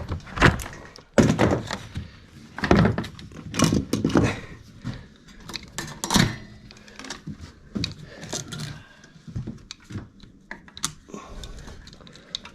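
Irregular knocks, thunks and light clatter of parts and packaging being handled while unpacking a new dirt bike in a small room, loudest in the first half and thinning out toward the end.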